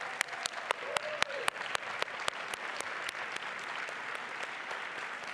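Audience applauding, with one person's louder, sharp claps close to the podium microphone, about four a second, through roughly the first half before blending into the general applause.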